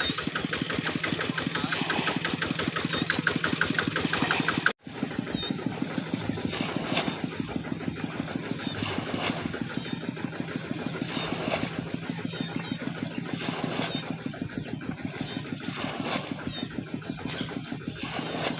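A small engine running steadily with a rapid, even pulsing. The sound cuts out for a moment about five seconds in, then carries on.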